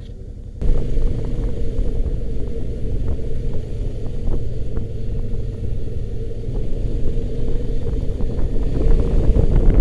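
A vehicle engine running on the move, with wind rumbling on the microphone; the sound gets much louder suddenly about half a second in.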